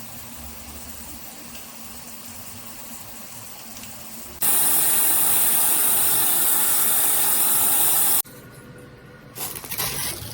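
Hotel Spa AquaCare handheld shower head spraying water: a steady hiss of running water. It becomes much louder and brighter about four and a half seconds in, then cuts back to a quieter, uneven splashing about eight seconds in.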